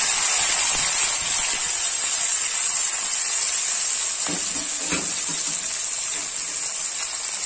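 Chopped tomatoes and onions sizzling in hot oil and spice paste in a wok, just added. A steady hiss that slowly dies down as the pan cools.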